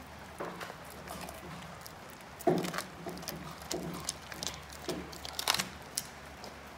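A greyhound crunching a raw meaty bone with his back teeth, in irregular cracking bites. The loudest crunch comes about two and a half seconds in.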